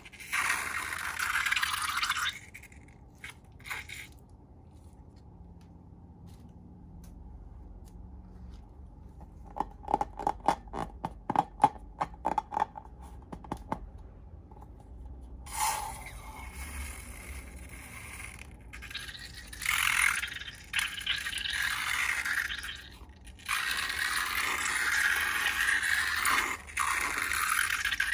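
Scraping and rustling in stretches, with a quiet gap. A quick run of about a dozen sharp clicks comes in the middle.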